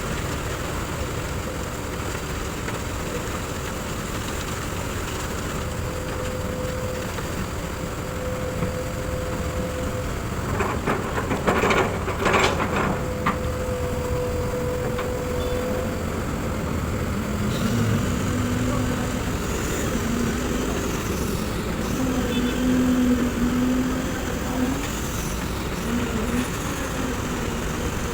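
Kobelco SK200 hydraulic excavator's diesel engine running under work, with a steady whine through the first half and a quick cluster of sharp metallic knocks about halfway through.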